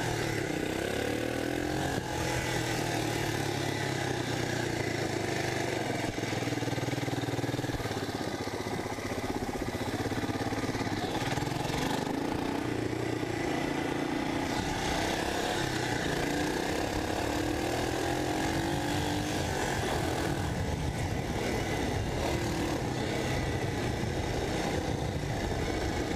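1985 Honda ATC250SX three-wheeler's single-cylinder engine running under way, its pitch rising and falling again and again as the rider speeds up and eases off.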